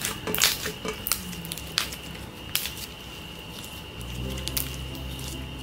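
Clear blue slime squeezed and kneaded by hand, giving squelches and irregular sharp pops as trapped air is pressed out.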